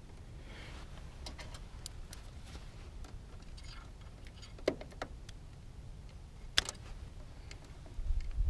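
Light clicks and taps of electrical wire being handled and pressed into push-in terminal connections, with two sharper clicks about halfway through and again later, over a low steady rumble.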